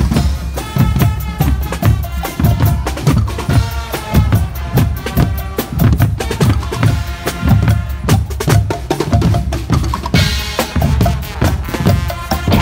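Carnival marching band's drum section playing close by: bass drums beating a steady rhythm of about two to three strokes a second, with snare and crashing cymbals over it.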